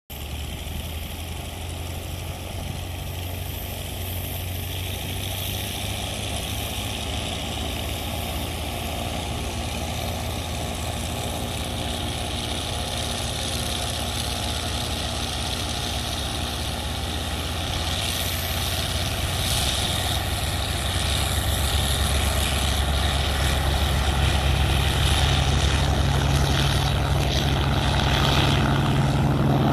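F4U Corsair's Pratt & Whitney R-2800 Double Wasp radial engine running at low power as the fighter taxis. It is a steady low propeller drone that grows gradually louder.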